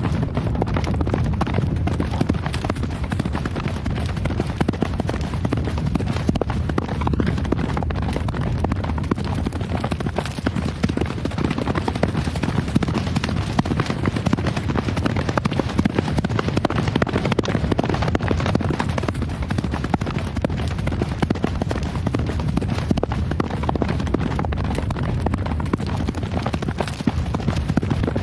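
Horse hooves galloping: a dense, continuous run of hoofbeats with no pause.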